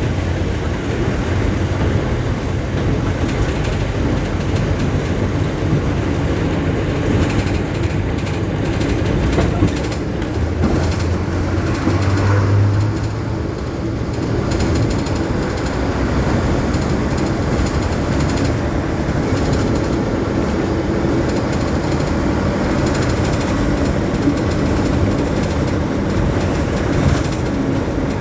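Steady engine drone and road rumble of a moving bus in traffic. Its low engine tone swells briefly about twelve seconds in.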